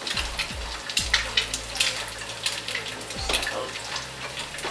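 An egg frying in olive oil with sautéed onions in a pan: a steady sizzle with scattered pops and crackles.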